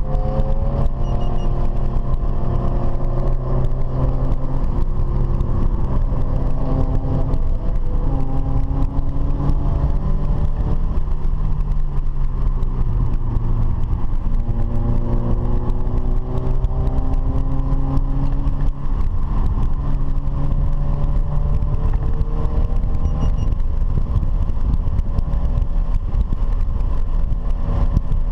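Car engine running hard, its pitch climbing and falling slowly as it revs up and eases off, over a constant low rumble of road and wind noise.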